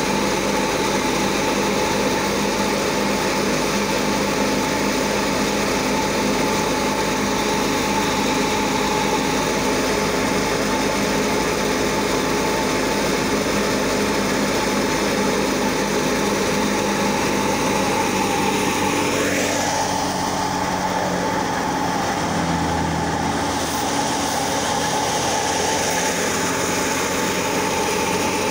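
Wheat thresher running steadily while wheat sheaves are fed into it, a constant loud mechanical drone with a steady hum. The pitch sags and the sound shifts briefly about two-thirds of the way through.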